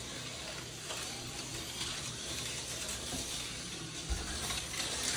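Tyco HO-scale slot cars running on the plastic track: a steady, hissy whir.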